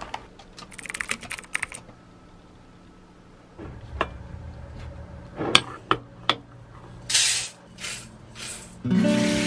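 Clicks and clinks of kitchen handling: a glass jar of dry rice opened and a metal scoop scooping the grains into a stainless steel bowl, with a short rush of pouring grain near the end. Before that, loose items rattle as a bag is rummaged through, and music comes in just before the end.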